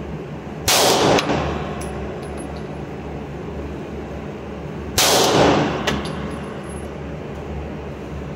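Two shots from a Canik METE SFx 9mm pistol, about four seconds apart, each with a short echoing tail off the indoor range's hard walls and a few light ticks after it, over a steady low hum.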